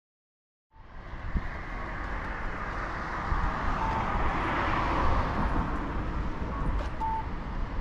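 Silence for the first moment, then outdoor road traffic noise, a steady wash that swells around the middle as a vehicle passes. A few faint short tones sound over it.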